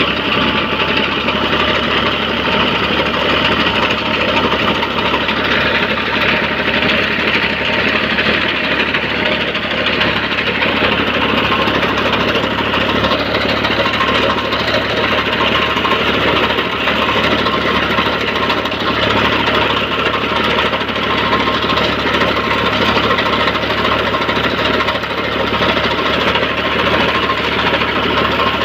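New Holland NH 480 diesel tractor running steadily under load, with the rapid clatter of its tractor-mounted front wheat reaper.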